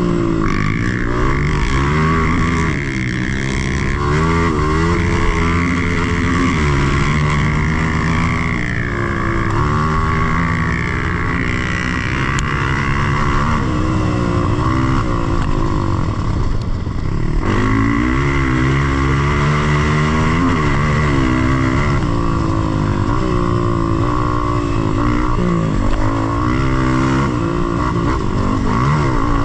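Dirt bike engine running under load on a trail, its pitch rising and falling over and over as the throttle is opened and closed.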